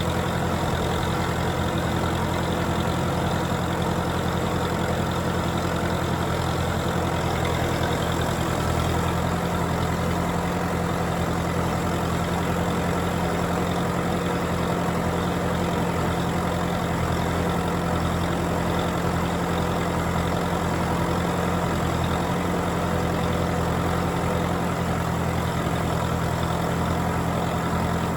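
Tractor engine running steadily, its low note shifting slightly about nine seconds in.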